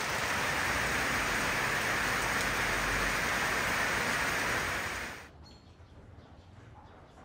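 Steady rain falling and splashing onto wet surfaces and pooled water; it stops abruptly about five seconds in, leaving a much quieter background.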